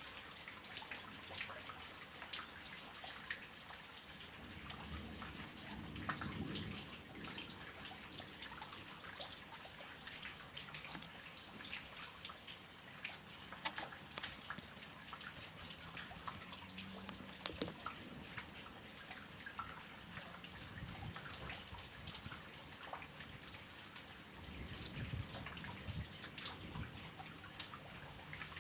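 Soft rain falling: a steady hiss of rain dotted with the tapping of individual drops, some of them sharper and nearer. A low rumble swells briefly twice, early and near the end.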